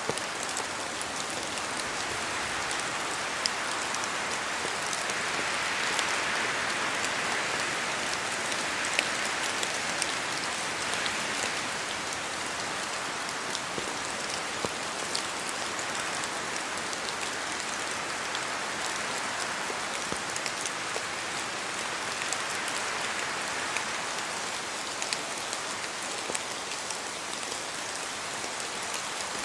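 Steady rain in a forest, an even hiss of rainfall with many sharp ticks of heavier drops falling from the trees. A soft swell, likely the wind, rises and fades a few seconds in and again near the end.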